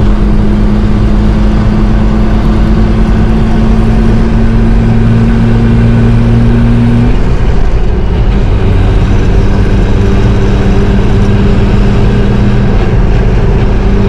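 1989 Toyota 4Runner being driven: steady engine and road drone that drops in pitch about seven seconds in, with no noise from the freshly repaired front hubs.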